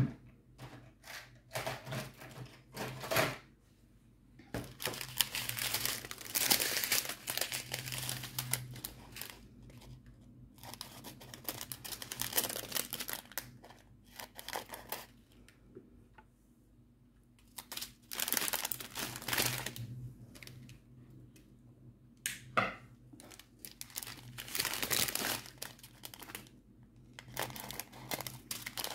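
Small plastic bags of diamond-painting drills crinkling as they are handled and sorted, in irregular bursts with short pauses between.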